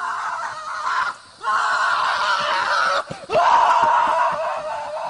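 A person screaming in long shrill cries, broken twice by short pauses, about a second in and about three seconds in.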